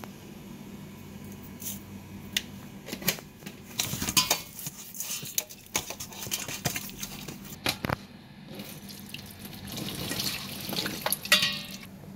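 Hands rubbing salt into a slab of raw pork belly in a wet stainless steel bowl: wet scrubbing and splashing with scattered sharp knocks against the metal, busiest about four seconds in and again near the end.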